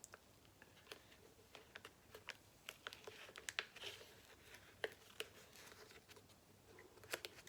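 Faint handling sounds of a decal and its paper backing sheet being positioned: scattered light clicks and short crinkles of paper.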